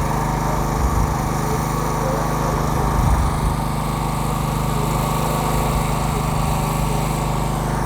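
A small engine running steadily, a constant drone that holds one pitch without revving.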